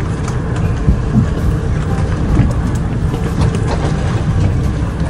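Steady low rumble of a boat at sea, the outboard motor running with wind on the microphone, and faint light clicks over it.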